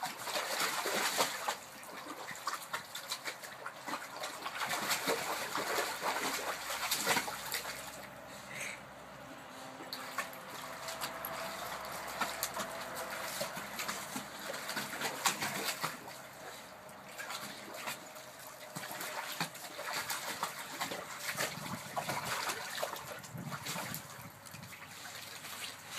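Water splashing and sloshing in a shallow kiddie pool as a Malinois puppy plays in it, in irregular bursts of splashes and slaps.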